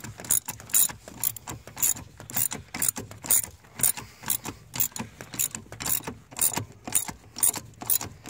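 3/8-inch ratchet clicking as it is worked back and forth, about two or three sharp clicks a second, snugging down the nuts of a new brake master cylinder.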